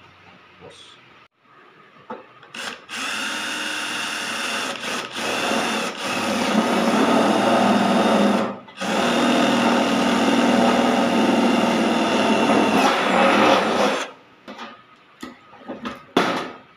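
Cordless drill running steadily as it bores through thin sheet-metal flashing, in two spells of about five seconds each with a brief stop between; these are the holes for pop rivets. Near the end, a few sharp clicks from a hand pop-rivet tool.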